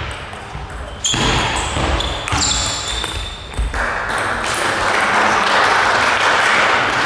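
A few sharp clicks of a table tennis ball struck by bats and bouncing on the table in a rally. From about four seconds in, spectators applaud steadily.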